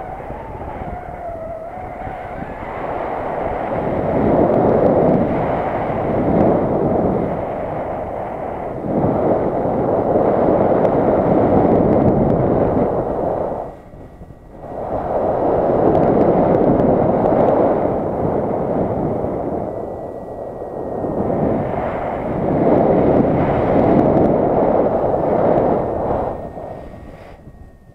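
Wind buffeting the microphone in gusts, a heavy low rumble that swells and dies away every few seconds and drops out briefly about halfway through.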